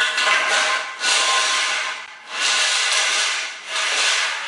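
Wayne Dalton TorqueMaster replacement spring being pushed by hand into its metal torsion tube, scraping along the inside of the tube in four long strokes of about a second each.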